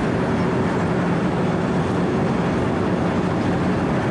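A 4-foot cold milling machine running steadily under load: its diesel engine and rotating cutter drum grind off asphalt in an even, unbroken mechanical noise with a low hum beneath it.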